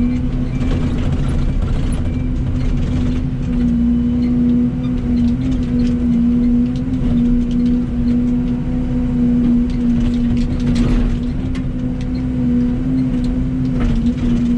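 Excavator running and digging dirt, its engine and hydraulics giving a steady drone of constant pitch, with a few knocks and scrapes from the bucket.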